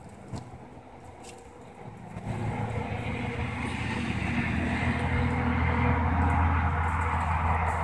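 A motor vehicle's engine running, coming in about two seconds in and growing louder, then holding a steady hum.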